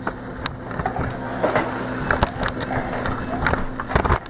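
A utensil clicking and scraping on the stainless steel inner pot of an Instant Pot as raw chicken pieces are moved around in oil on the sauté setting, with scattered light knocks over a steady low hum.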